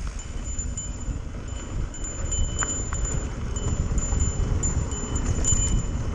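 Wind rush and rumbling on the microphone from a mountain bike picking up speed downhill over rough trail, growing louder. A small bell on the bike jingles on and off as it bounces.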